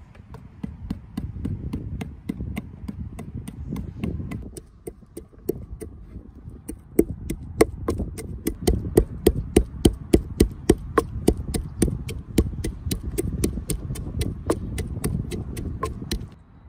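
Rapid, regular chopping with a knife on a cutting board, the strikes sharpening to about four a second and growing louder about seven seconds in, then stopping just before the end, over a steady low rumble.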